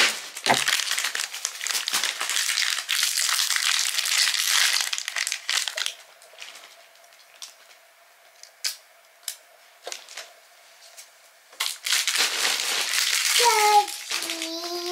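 Plastic and foil packaging of a printer ink cartridge crinkling as it is torn open and handled, with a few sharp clicks in a quieter stretch in the middle, then more crinkling near the end.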